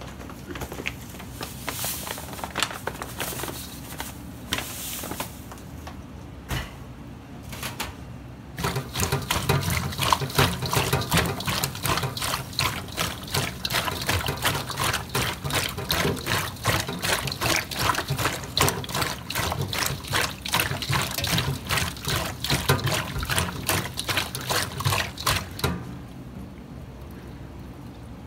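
Bare hands salt-rubbing slimy conger eel pieces in a stainless steel bowl: a fast, continuous wet squelching and slapping as the slime is worked off the skin. It starts in earnest about eight seconds in, after a few scattered handling sounds, and stops near the end.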